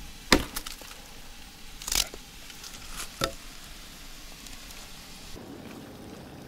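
A hatchet with a piece of wood wedged on its blade is smacked down on a log to split kindling: four sharp wooden knocks over about three seconds, the first the loudest.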